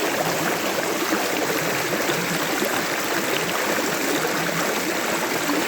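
Creek water running over rocks, a steady rushing and trickling with small gurgles.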